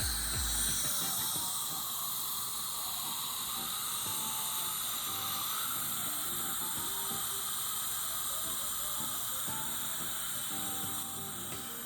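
Dental chair equipment hissing steadily, easing slightly near the end.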